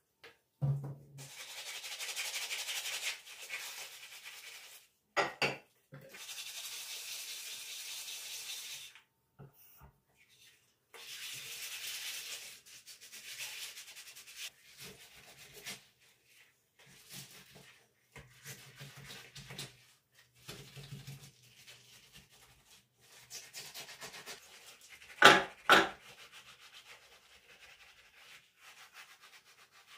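Hand scrubbing of a surface in long stretches of several seconds each, with shorter strokes later on. There is a sharp knock about five seconds in and two louder knocks about 25 seconds in, the loudest sounds here.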